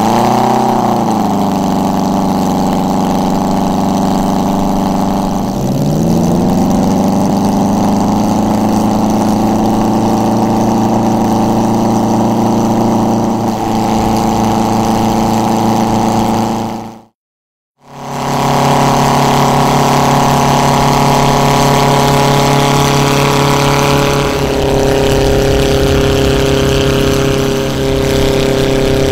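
The Bugatti 100P replica's twin engines running on the ground, driving its contra-rotating propellers with a steady, even hum. About five seconds in the pitch sags and climbs back as they are throttled; the sound drops out for under a second about two-thirds through, then carries on at a slightly different steady pitch.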